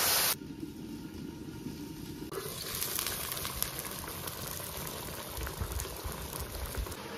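Water poured into a hot wok hisses loudly and cuts off abruptly a moment in. Pieces of cured pig's head then simmer and bubble in the broth, the bubbling growing steadier from about two seconds in.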